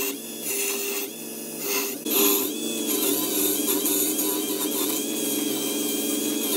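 Workman wood lathe running while a turning tool cuts a spinning wooden rolling pin. The wood shaving hisses in surges for the first two seconds, then settles into a steadier scraping cut with a thin high ring over the motor hum.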